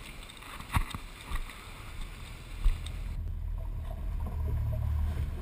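Fishing boat underway heard through a bow-mounted action camera: a steady low rumble of motor, wind and water, with a few short knocks in the first half. The sound changes abruptly about three seconds in, after which the low rumble grows louder.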